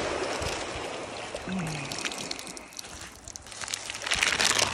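Surf washing steadily on a sand beach. From about three seconds in, thin plastic crinkles and crackles as a discarded chip bag and a plastic sheet are picked up off the sand.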